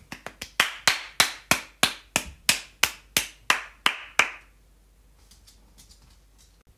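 Hands clapping about three times a second: a few quick soft claps, then a dozen loud even ones that stop a little after four seconds in.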